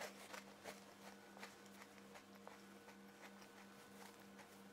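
Near silence: a faint steady hum of room tone with soft, scattered clicks of a crunchy cookie being chewed.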